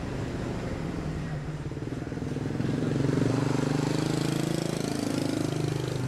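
A motorcycle engine running close by. It grows louder about two and a half seconds in, and its pitch shifts as it moves past.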